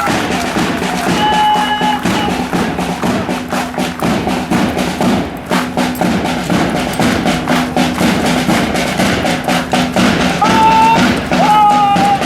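Military band playing a march: drums beat steadily under a melody that comes and goes over a steady low drone.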